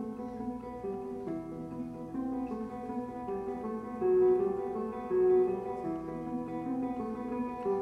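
Solo acoustic guitar played live, a slow plucked melody of ringing notes, with two notes sounding louder about four and five seconds in.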